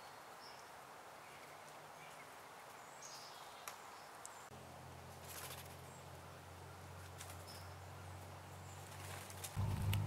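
Quiet woodland ambience: a steady hiss with a few faint, short, high bird chirps and scattered small clicks and rustles. A steady low hum comes in about halfway and grows much louder near the end.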